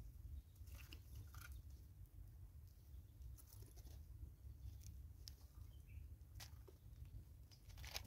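Faint scattered clicks and crunches of Smith's bush squirrels cracking seeds and scrabbling at a seed feeder, the sharpest near the end, over a low steady rumble.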